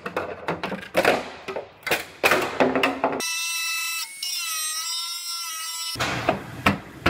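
Quick knocks and clicks of hands and tools on car body metal. About three seconds in, a pneumatic cut-off tool whines steadily for about three seconds as its abrasive wheel cuts through the steel body panel, its pitch wavering slightly under load. It stops abruptly and the short clicks resume.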